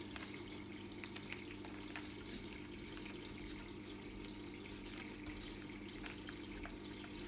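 Faint handling of paper: light rustles and small taps as a paper unicorn cutout is pressed onto an album page, over a steady background hiss and low hum.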